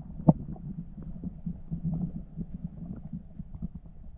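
Muffled underwater sound picked up by a camera in a waterproof housing: a low rumble with scattered small knocks and clicks, and one sharper knock just after the start.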